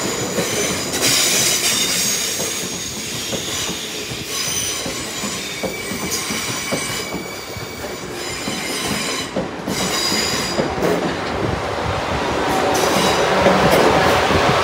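A South Western Railway class 444 Siemens Desiro electric multiple unit passing slowly along the platform. Its wheels and running gear rumble steadily, with high-pitched squealing tones that come and go, and it grows louder toward the end.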